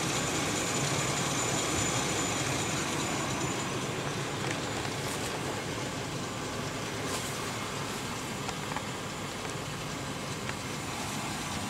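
Steady low rumble with a constant hiss over it, from a car idling close by, the 1977 Cutlass with its lights on.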